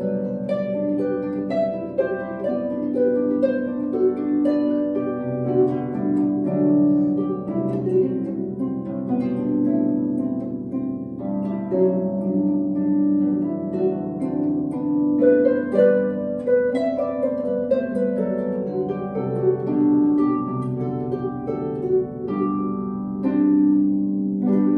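Solo lever harp playing a traditional Irish tune: both hands plucking a melody over lower ringing notes, played continuously.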